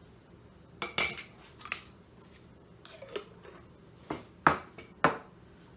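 Kitchen utensils and dishes clinking and knocking on a countertop as they are set down and handled: a handful of separate sharp clinks and taps, some briefly ringing, the loudest about four and a half seconds in.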